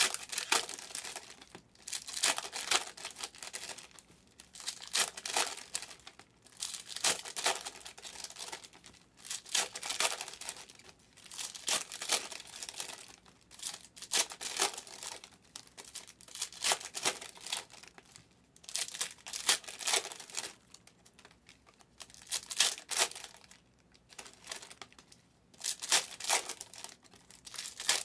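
Foil wrappers of Donruss Optic basketball card packs being torn open and crinkled, in repeated bursts about every two seconds.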